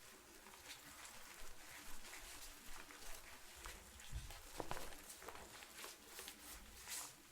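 Tent fabric rustling and flapping in a light wind, in soft irregular flutters.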